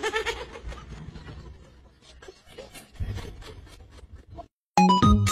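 A short voice at the start, then faint irregular clicks and rustles for a few seconds. After a brief dead silence, loud electronic music starts near the end.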